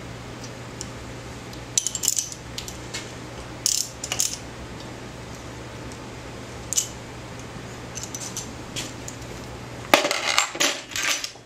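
Metal hand tools clicking and clinking against a bicycle disc-brake caliper mount and its bolt as a hex-bit ratchet is worked. The clicks are scattered, with a louder burst of metallic clatter about ten seconds in, over a steady low hum.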